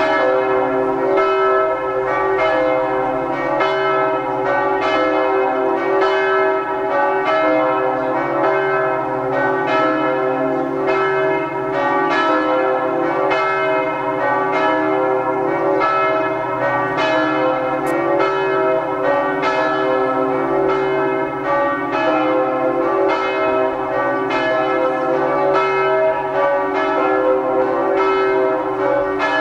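Several church bells ringing together: a steady stream of overlapping strikes, about two a second, over a sustained hum of their mingled tones.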